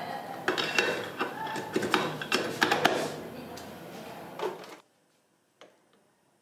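Metal clinks and knocks of a 70cc motorcycle engine's aluminium crankcase halves being handled and fitted together, over steady workshop noise. Near the end the sound drops away sharply, leaving a faint click.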